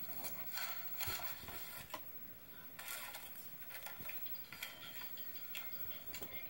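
Scattered light clicks and knocks of toys and a box being handled, over a steady hiss.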